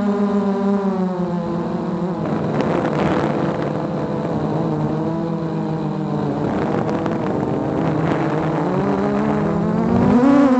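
Small quadcopter drone's propellers and motors whining, a steady many-toned hum that dips in pitch and rises again as it manoeuvres, with stretches of rushing air noise. The pitch climbs sharply near the end.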